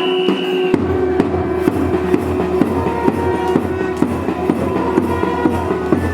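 Music with a steady drum beat of about three strokes a second over a held low note, the beat coming in just under a second in.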